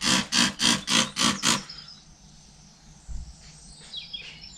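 Hand trigger sprayer squeezed quickly and repeatedly, a short hiss with each squeeze at about three or four a second, spraying soapy water onto a tyre to find a slow puncture; the squeezing stops under two seconds in. Faint bird chirps follow.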